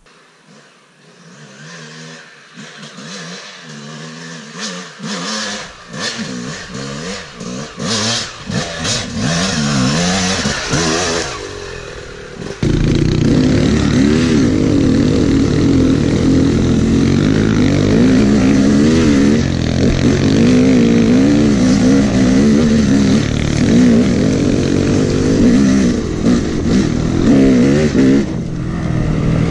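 Dirt bike engine revving up and down, faint at first and growing louder. About twelve seconds in it jumps to the loud, close sound of a ridden Yamaha YZ250 two-stroke, the pitch rising and falling as the throttle is worked.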